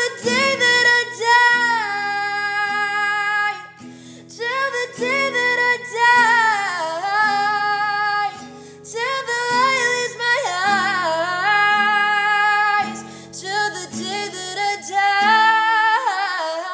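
A woman singing with guitar accompaniment: a run of sliding, held sung phrases over plucked guitar notes, with short breaks about four and eight seconds in.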